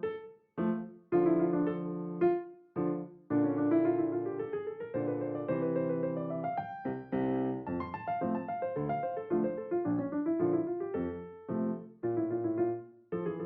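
Background music: a gentle piano melody with chords, played in phrases with brief pauses between them.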